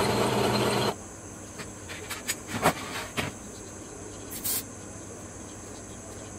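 Drill press motor running while drilling a hole in steel plate, cutting off suddenly about a second in. After that, faint steady insect chirring, with a handful of light clicks and a brief scrape.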